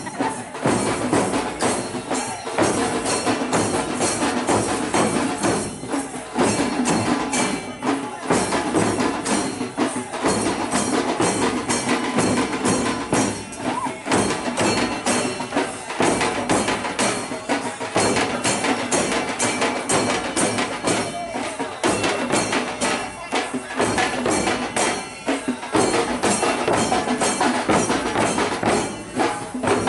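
A street troupe of large double-headed dhol barrel drums beaten in a fast, steady rhythm, with sharp stick strokes over the drum heads' boom.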